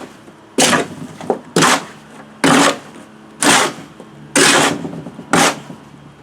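Hand float scraping back and forth across a rough concrete driveway surface, a rasping stroke about once a second, seven strokes in all.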